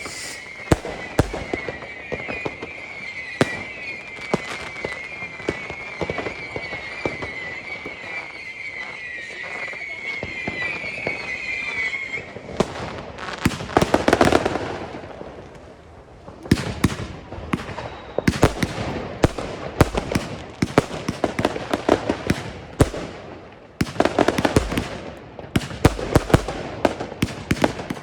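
Consumer firework batteries firing: first the Argento Chiara, with a wavering whistle and sharp pops for about twelve seconds. Then a rushing swell comes about fourteen seconds in. From about sixteen seconds the Funke Kamuro and Jorge Orinoko batteries start, with a dense run of sharp bangs and crackles.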